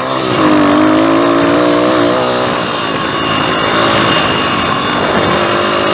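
Pit bike's small single-cylinder engine running hard under throttle as the bike is ridden. The revs hold high and steady for about two seconds, then drop and waver as the throttle changes.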